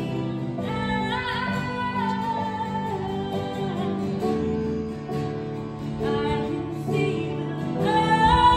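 Live worship band music: a woman sings a melody of long held notes into a microphone over acoustic guitar and keyboard chords, swelling louder near the end.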